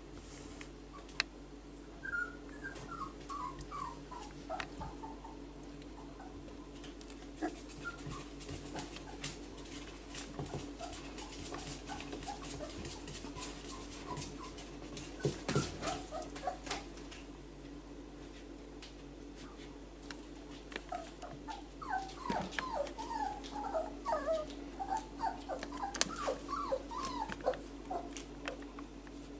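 Four-week-old whippet puppies whimpering and squeaking in short, high little calls, in a run a couple of seconds in and a longer, busier run in the last third, with scattered soft clicks in between.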